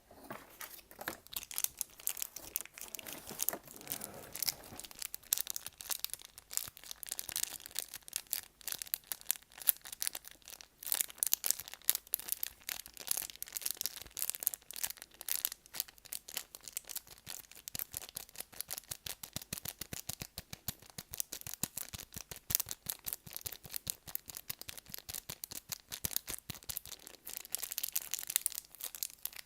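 ASMR trigger object handled close to the microphone: a dense run of rapid, crisp crackling and scratching clicks, like crinkling or tearing.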